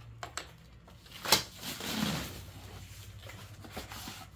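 Brown paper and cardboard wrapping handled around a sheet of art glass: a sharp knock about a second in, then paper rustling and small handling noises.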